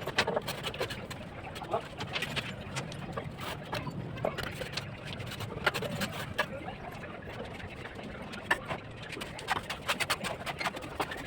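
Irregular sharp clicks and taps of bricklaying work, a mason's trowel knocking on bricks and mortar, at uneven intervals.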